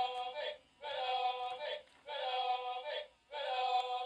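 A short sung football chant phrase, repeated four times in near-identical bursts about a second long.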